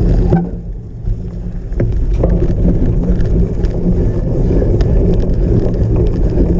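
Wind buffeting the microphone over the low rumble and rattle of a cyclocross bike riding on rough ground, with scattered knocks. The sound dips briefly about half a second in, then picks up again.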